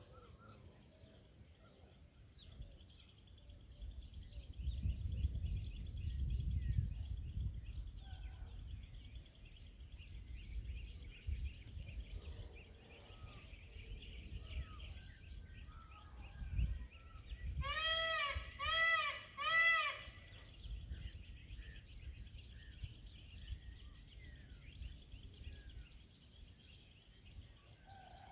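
Peacock calling three times in quick succession, loud arching calls each under a second long, over a steady high insect drone and scattered small-bird chirps. Wind rumbles on the microphone a few seconds in.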